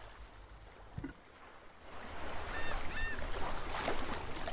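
Outdoor ambient noise: quiet for the first two seconds apart from one soft knock, then a steady rushing background rising in, with two short high chirps a little after that.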